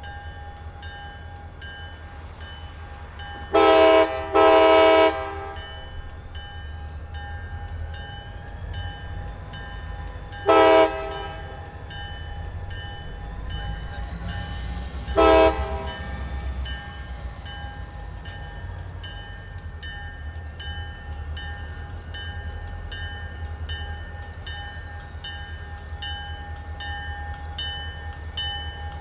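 CSX diesel locomotive's horn sounding two long blasts close together, then two short blasts several seconds apart, as the locomotive creeps up to a grade crossing. Underneath, a grade-crossing signal bell rings steadily at about two strikes a second over the low rumble of the locomotive's diesel engine.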